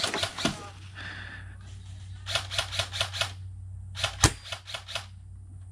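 Airsoft gunfire: quick runs of snapping pops, with one louder, sharp crack a little past four seconds in.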